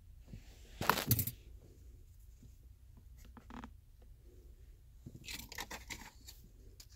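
Hands handling small objects: a loud short scrape-like rustle about a second in, a few light clicks around three seconds, and a longer crinkly rustle around five to six seconds.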